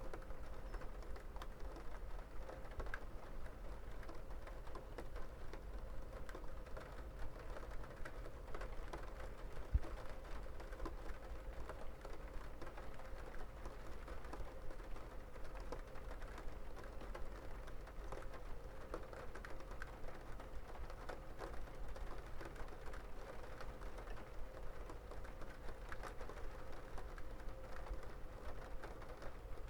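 Rain falling and pattering in many small, irregular drips and taps, steady throughout, with a faint steady hum underneath and a single dull thump about ten seconds in.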